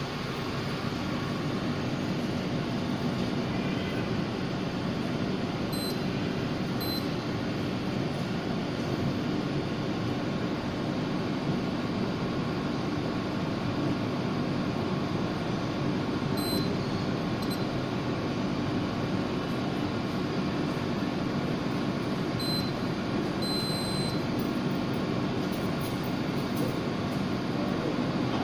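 5-axis CNC tool grinder running: a steady machine hum and hiss, with a few brief, faint high tones now and then.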